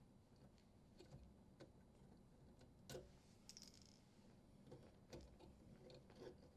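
Near silence with a few faint, scattered clicks and ticks of a screwdriver, screw and wires being handled at a dishwasher's electrical terminal box.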